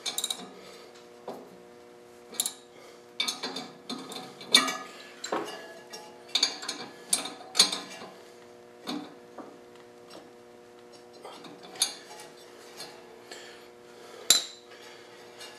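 A ratchet wrench with a 7/16 socket tightening the bolts of a fan hub's taper bushing a little at a time: irregular metallic clicks and clinks, some in quick clusters of ratchet clicks, over a faint steady hum.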